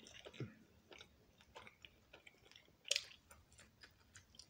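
A person chewing and biting a slice of pizza, with irregular wet mouth clicks and smacks and one louder click about three seconds in.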